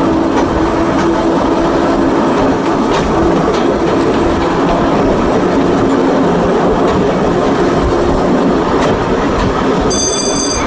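Small electric railway car running along its track: a steady hum under the running noise, occasional clicks of the wheels over rail joints, and a brief high squeal near the end.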